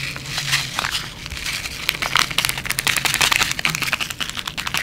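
Sesame seeds being sprinkled by hand onto cake batter: a quick, irregular run of small crinkling ticks.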